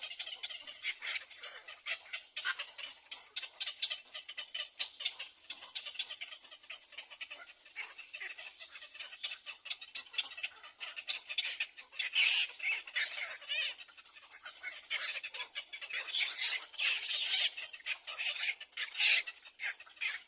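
Nestling birds calling in rapid, high-pitched chirps and squeaks, typical of begging for food, getting louder in bursts about twelve seconds in and again near the end.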